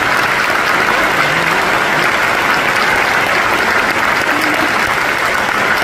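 Concert audience applauding steadily, a dense, even clapping that holds its level throughout.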